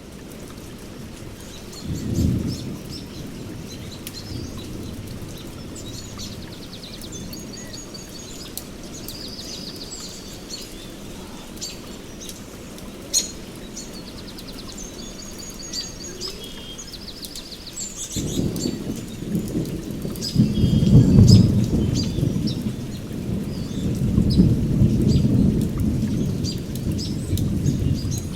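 Heavy rain falling steadily on forest foliage, with birds chirping and trilling throughout. A short low rumble comes about two seconds in, and loud rolling thunder rumbles from about two-thirds of the way through to the end.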